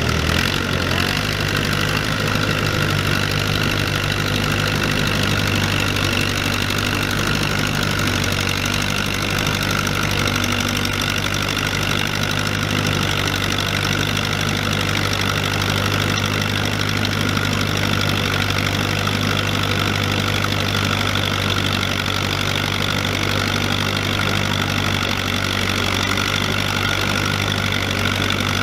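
Allis-Chalmers farm tractor engine running steadily under load as the tractor pulls a weight-transfer sled at low speed.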